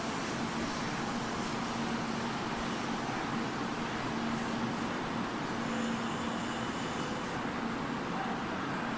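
Shinkansen 800 series bullet train moving slowly past the platform: a steady rush of running noise with a low hum that comes and goes.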